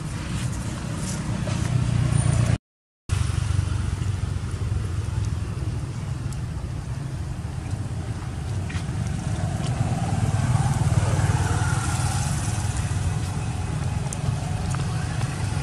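A steady low engine rumble, like a motor vehicle idling or running nearby. It cuts out for a moment about two and a half seconds in.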